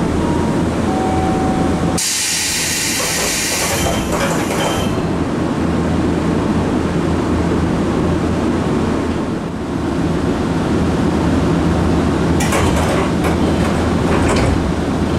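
Nankai 2230-series train's air-operated doors closing: a loud hiss of air about two seconds in, lasting nearly three seconds, over the car's steady hum. Near the end the doors open again with a few knocks and more hissing air.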